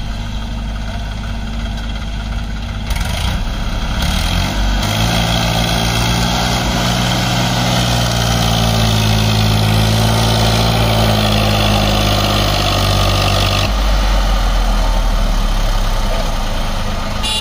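Massey Ferguson tractor's diesel engine working hard under load as it pulls a loaded trailer out of heavy mud: the revs climb about four seconds in, hold for about nine seconds, then drop back suddenly near the end.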